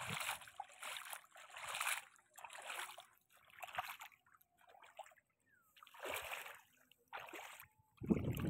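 Bare feet wading through shallow, muddy floodwater: irregular sloshing splashes, one with each stride, with short pauses between them. A louder, lower burst of sound comes near the end.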